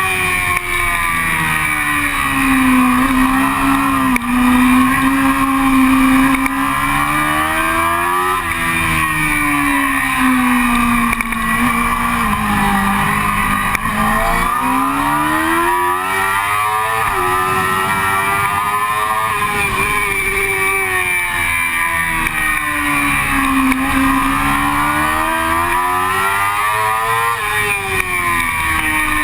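Sport motorcycle engine heard on board while lapping a track. The revs climb hard, fall back and climb again several times as the rider accelerates, shifts and slows for corners, over steady wind noise.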